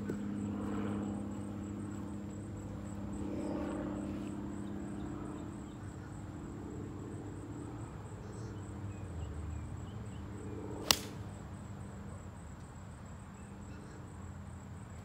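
A golf iron striking the ball on a tee shot: a single sharp crack about eleven seconds in.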